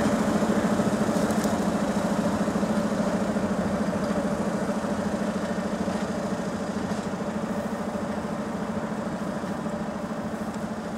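SU42 diesel locomotive's engine idling with a steady low throb, growing slowly fainter.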